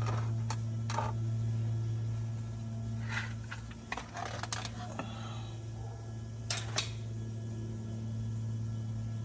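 A steady low hum, with a few scattered clicks and knocks of something being handled, two of them close together about two-thirds of the way through.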